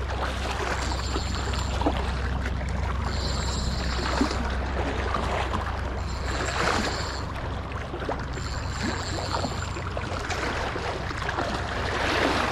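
Water splashing and slopping as a hooked pink salmon thrashes at the surface, over a steady low rumble. A high whir comes and goes about four times.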